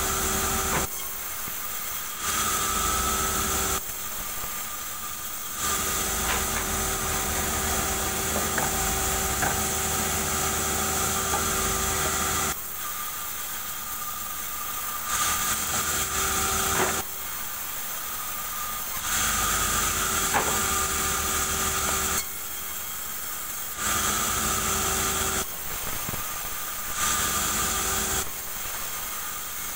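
Band sawmill running, its blade sawing through a durian log, with a steady whine over a hissing rasp. Every few seconds the sound steps between louder, brighter stretches and quieter ones.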